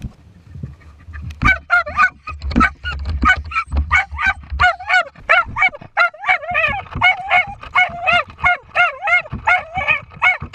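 A Smooth Fox Terrier barking rapidly in short, high, yipping barks, about three a second, at rats caged at the end of an earthdog tunnel: the terrier working its quarry. In the first few seconds, before the barking starts, there is a low rumbling.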